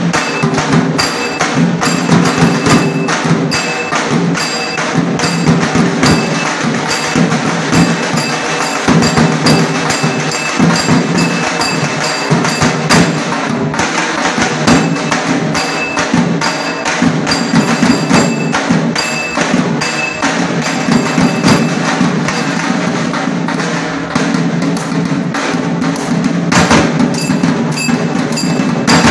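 Nashik dhol band: several large dhol drums beaten with sticks in a fast, dense, unbroken rhythm.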